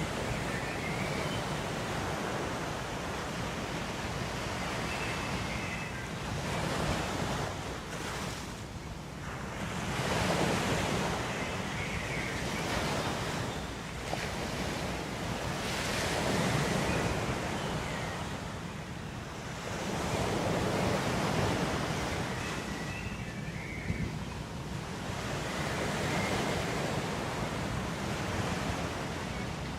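Ocean surf: waves breaking and washing in, the rush swelling and fading every five or six seconds.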